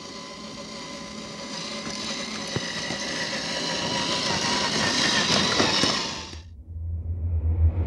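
Electric drivetrain of a 1/10-scale RC crawler, a 540-size 27-turn motor driving through gears, whining steadily as the truck drives through snow, getting louder as it comes closer, then cutting off abruptly about six seconds in. Low music starts up near the end.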